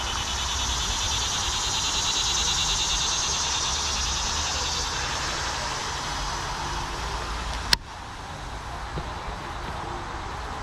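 High, rapidly pulsing insect buzz, like a cicada's, swelling over the first few seconds and fading out about six seconds in, over a steady low rumble. A single sharp click sounds near the end.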